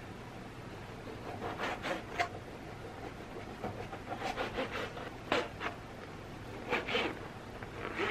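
Ceramic kitchen knife slicing raw salmon into bite-size pieces on a plastic cutting board: short cuts in small groups, each ending with the blade tapping the board.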